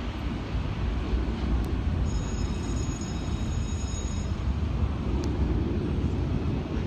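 Steady low rumble of a jet airliner's engines heard from a distance as it climbs out just after takeoff.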